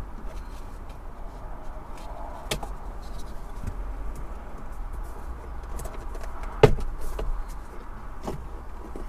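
Plastic door trim on a Jaguar XK8 being worked free by hand, with scattered clicks and knocks as the speaker grille and door-card clips come away. The loudest knock comes about two-thirds of the way through.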